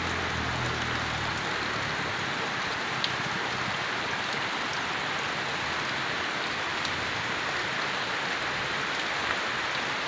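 Steady rain falling on dense foliage and palm fronds, an even hiss with scattered drop ticks. A low hum underneath fades out about a second in.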